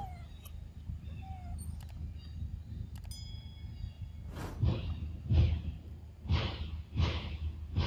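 Macaque biting and chewing a ripe mango close up: a run of munching sounds a little more than once a second, starting about halfway through. Before that, faint bird chirps.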